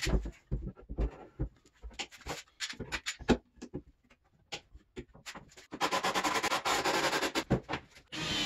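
Scattered knocks and clicks of wooden vise parts and bar clamps being handled and set against the underside of a wooden workbench, followed near the end by about two seconds of steady noise.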